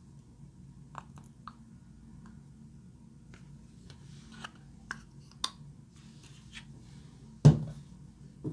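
Slime being worked by hand, giving scattered small sticky clicks and pops. A louder thump comes about seven and a half seconds in.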